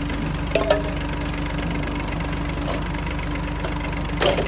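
Massey Ferguson tractor's diesel engine running steadily, powering a brick-making machine. Two sharp clacks, one under a second in and one near the end, come from bricks and the steel press being handled.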